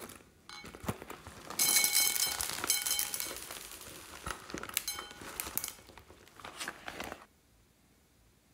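Rustling and crinkling with scattered light clicks as a plastic-and-fabric case is handled and tipped over a glass bowl. The sound is loudest from about a second and a half in and stops abruptly near the end.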